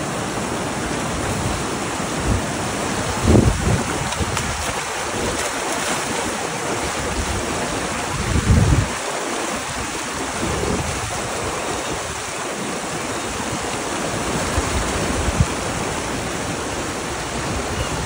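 Shallow river water rushing and churning steadily over a weir, crowded with salmon swimming upstream. Wind buffets the microphone briefly twice, about three and eight seconds in.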